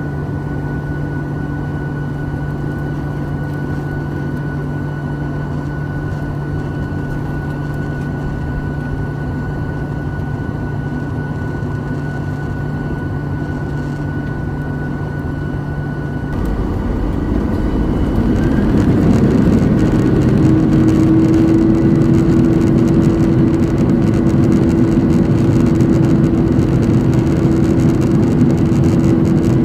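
Cabin sound of a Boeing 737-900ER's CFM56-7B jet engines: a steady hum at low thrust, then about sixteen seconds in the engines spool up, growing louder over a few seconds into a heavy rumble with a steady whine, as thrust is set for the takeoff roll.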